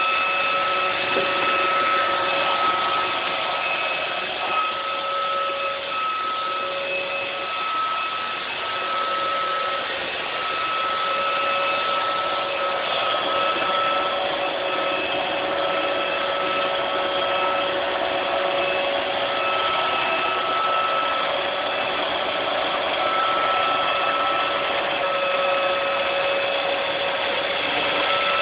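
iRobot Roomba robot vacuum running as it makes its way back to its dock: a steady motor whine over a whooshing hiss, the whine dropping out briefly every second or two.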